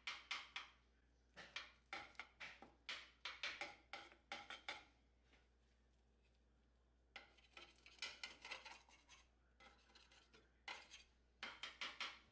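Metal spoon scraping against a glass baking dish as it scoops through a baked cheesy potato bake with a crispy top: runs of quick scrapes, with a pause of about two seconds midway.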